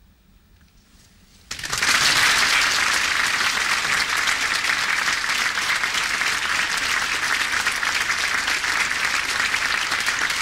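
Concert audience applauding: after a second and a half of near silence, many people's clapping starts suddenly and continues steadily.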